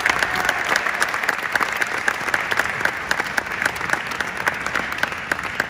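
Audience applauding steadily, a dense clapping that eases off slightly near the end.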